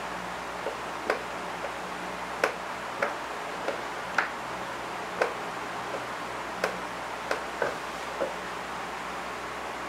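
Cats' claws clicking and tapping on wooden floorboards during a play fight: about a dozen short, sharp clicks at uneven intervals over a steady background hiss.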